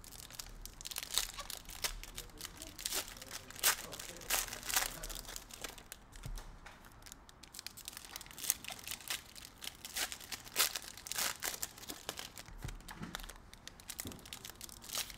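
Foil wrappers of Donruss basketball card packs being torn open and crumpled by hand: a run of sharp, irregular crinkling crackles.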